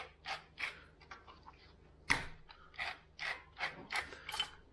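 Hand-twisted pepper mill grinding black pepper in short rasping strokes, about three a second, with a single louder knock about two seconds in.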